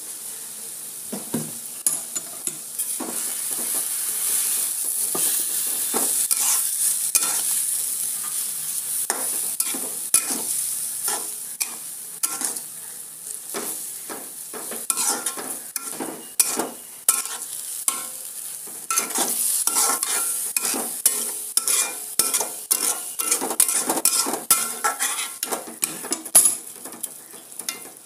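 A metal spatula stirring and scraping vermicelli cooking in milk and sugar in a metal kadhai, with repeated clinks and scrapes against the pan. Under it runs a steady sizzling hiss from the hot, bubbling mixture. The scraping clinks come more often in the second half.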